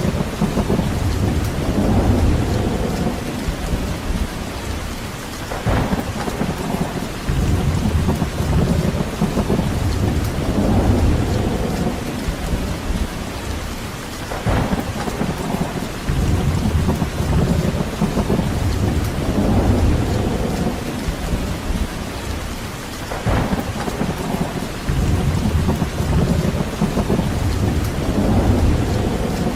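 Steady rain hissing, under deep rolling rumbles that swell and fade every few seconds, with a brief sharper sweep three times.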